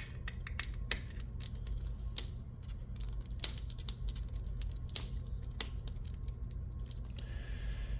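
Plastic packaging of a mini-food blind capsule being picked and pulled at by hand: irregular small crackles and clicks as a stubborn wrapper refuses to come off, over a steady low hum.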